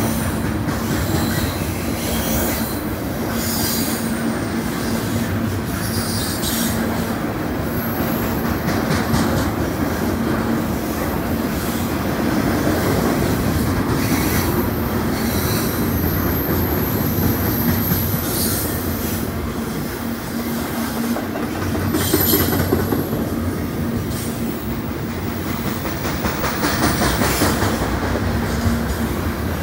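CN double-stack container freight cars rolling past steadily, steel wheels rumbling and clattering over the rails. A thin, high-pitched wheel squeal comes and goes, strongest about a third of the way in and again past the middle.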